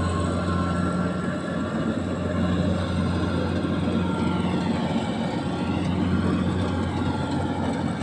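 A rice combine harvester's engine running steadily, with a low, even hum.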